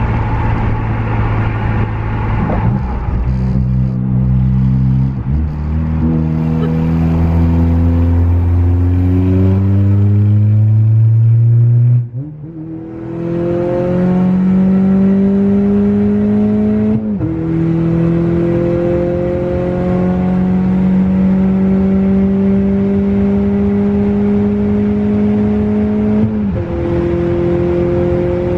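Full-bolt-on 2018 Honda Accord's 1.5-litre turbocharged four-cylinder, heard from inside the cabin, accelerating hard through the gears of its six-speed manual. The engine note climbs steadily in each gear and breaks off at about five gear changes, climbing more slowly in the higher gears.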